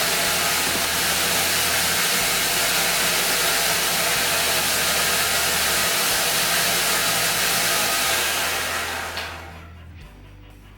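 Homemade 2x72 belt grinder running with its abrasive belt spinning, a loud steady rushing hum. The sound fades away about eight seconds in as the grinder is shut off and winds down.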